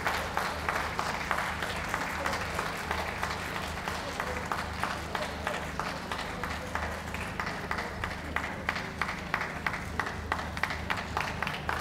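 Spectators applauding at ringside, the clapping thinning out to scattered claps toward the end.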